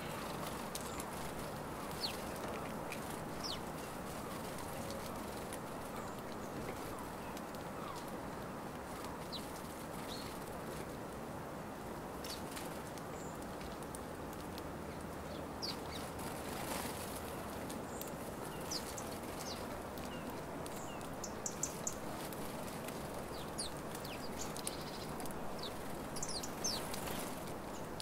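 A flock of house sparrows at a seed feeder: scattered short, high chirps, coming thicker in a cluster about three-quarters of the way through and again near the end, with wings fluttering as birds come and go, over a steady low background noise.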